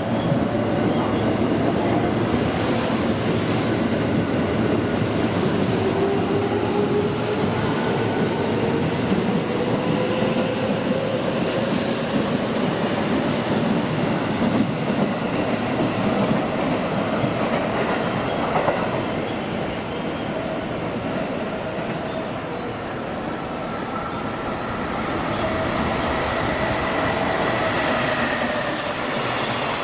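Electric train running alongside the station platform: steady rumbling wheel-and-rail noise with a motor whine that rises in pitch through the first half, as when a train pulls away.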